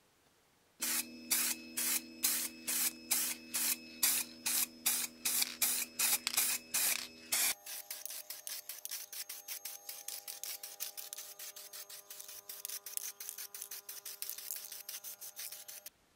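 Aerosol can of matt black spray paint sprayed in short, regular puffs, about two or three a second, over a steady hum. About seven and a half seconds in, the hum changes pitch and the puffs come quicker and quieter.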